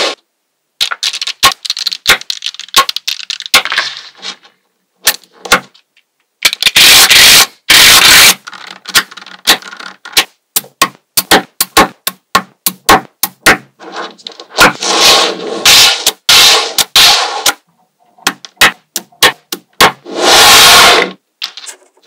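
Small magnetic balls clicking sharply as they snap onto one another, many times over, with short bursts of dense rattling and scraping as strips and blocks of balls are slid and pressed together on a hard table.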